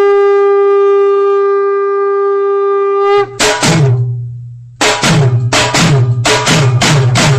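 A conch shell (shankh) blown in one long steady note for about three seconds. Then a drum comes in: two strokes, a short pause, then a steady beat of deep strokes whose pitch falls after each hit.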